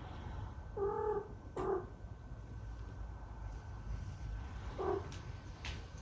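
A stray cat meows three times in short calls, two close together near the start and one more about five seconds in. A couple of brief clicks are heard between them.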